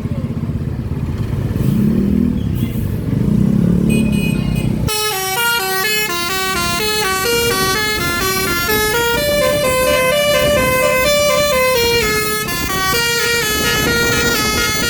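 Engine and road noise for about five seconds, then a bus's 'telolet basuri' musical horn cuts in from its roof-mounted trumpets, playing a fast melody of stepping notes, several sounding at once.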